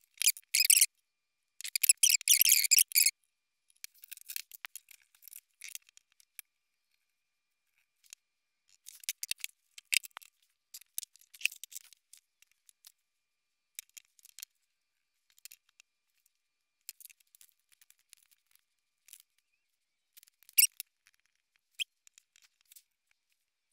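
Handling noise from multimeter test leads and alligator clips on a tabletop: two louder rustling stretches in the first three seconds, then scattered faint clicks and scrapes as the probes and clips are moved.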